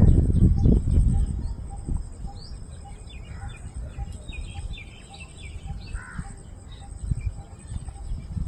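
Birds calling and chirping, with short high calls scattered through, over a low rumble that is loudest in the first second or so.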